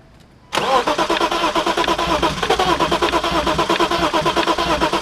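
BMW E36 325is inline-six being cranked over by its starter, a fast even pulsing with a whine, without catching; it starts suddenly about half a second in and cuts off abruptly near the end when the key is released. The crank-but-no-start is what the owners take for a failed fuel pump.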